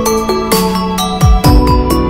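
Background electronic music: held bell-like notes over a beat, with two deep thumps a little past the middle.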